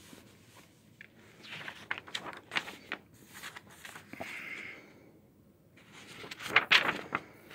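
Comic books and paper being handled and their pages flipped: a string of light paper rustles and flicks, with a brief steady rustle about four seconds in and a busier flurry near the end as a booklet's pages are fanned.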